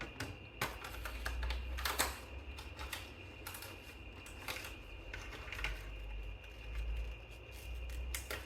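Scattered light clicks and taps of laptop DDR5 SO-DIMM memory modules being handled, pulled out and pressed into their slots, over a low rumble of hands on the laptop.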